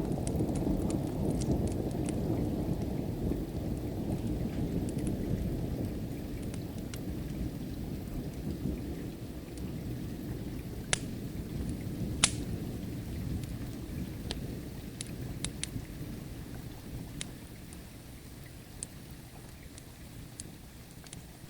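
A long roll of distant thunder slowly fading away under steady rain, with scattered sharp pops from a crackling wood fire, two of them louder about halfway through.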